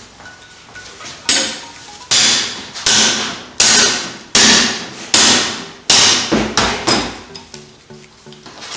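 Metal mallet hammering the back triangle of a spit-roast pole into a whole pig's hind legs: about eight hard blows, one every three-quarters of a second. Each blow fades out briefly after it.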